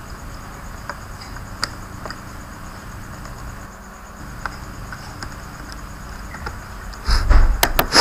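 Insects chirping steadily in the background, with a few small clicks. About seven seconds in comes a short burst of loud thumps and knocks as the laptop is handled on the workbench.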